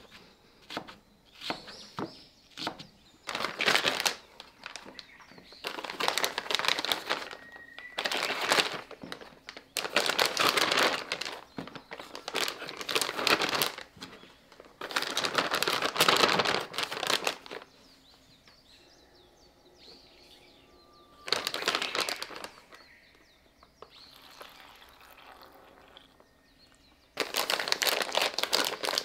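Plastic zip-top bag rustling and crinkling in long bursts as eggplant slices are handled in it and its zipper seal is pressed shut near the end. A few short sharp taps of a fork pricking the eggplant come at the start.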